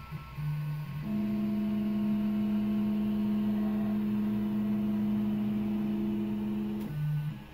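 Stepper motors of a Prusa i3 MK2S 3D printer whining as the print begins: a couple of short moves, then one long steady move of several pitches from about a second in, lasting about six seconds and stopping near the end.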